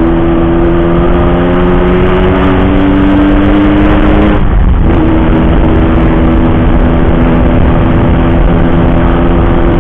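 Yamaha RX King's two-stroke single-cylinder engine running loud through an aftermarket racing exhaust while riding. The revs climb slowly, break off briefly about four and a half seconds in as for a gear change, then hold steady at a slightly lower pitch.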